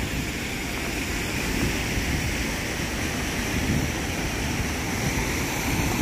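Steady rush of a waterfall and of shallow river water running over stones.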